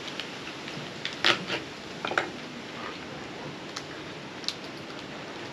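Knife cutting through a marron's (freshwater crayfish) shell on a wooden chopping board: a handful of short, sharp cracks and knocks. Under them runs a steady rush of wind.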